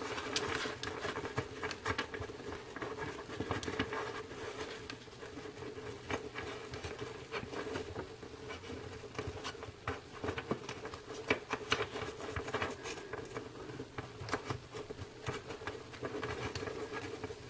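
Trading cards being handled, sorted and stacked by hand: a run of light irregular clicks, taps and scrapes of card on card, over a faint steady hum.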